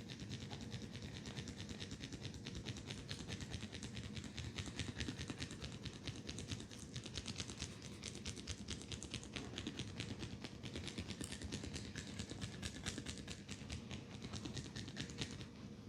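Head massage on hair and scalp: a quick, steady run of soft crackling taps.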